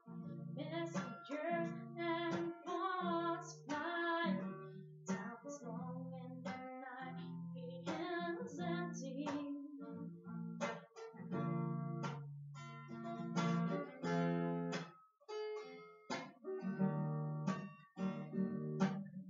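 An acoustic guitar strummed in chords, with a woman singing along.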